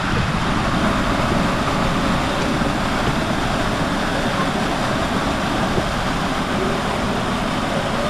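Small waterfall pouring right beside the camera: a loud, steady rush of falling water.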